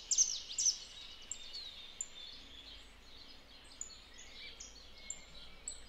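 Small birds chirping: quick high chirps that sweep downward, thick in the first second and then scattered, over a faint steady outdoor hiss. A faint low hum comes in about two seconds in.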